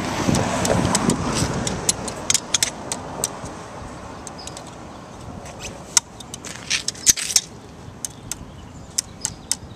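A low rumble that fades away over the first two or three seconds, then scattered sharp clicks and clinks, several in quick clusters.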